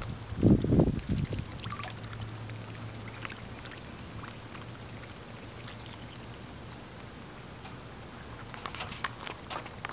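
Muscovy ducks dabbling their bills in a bowl of grain and water, giving scattered small clicks and splashes that grow busier near the end. A low rumble about half a second in is the loudest sound.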